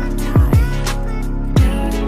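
Background music with a steady beat: deep kick drums about every half to one second under sustained chords.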